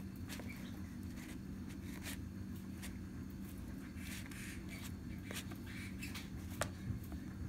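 Scattered light clicks and soft crinkles of a clear plastic deli cup being handled, over a steady low hum.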